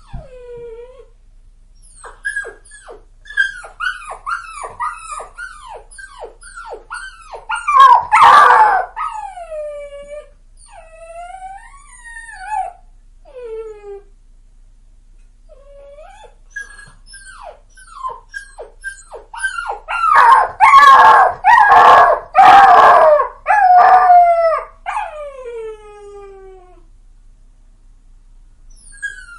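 A puppy crying: a quick run of short, high whimpers that each fall in pitch, about two a second, rising into a loud howl about eight seconds in and trailing off in long falling whines. After a short pause the crying starts again, loudest as a run of howls a little past the middle, and ends in a long, slowly falling whine, followed by a few quiet seconds near the end.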